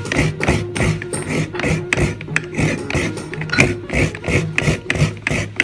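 Coconut meat being grated from a half shell: rhythmic scraping strokes, a few a second, with soft background music underneath.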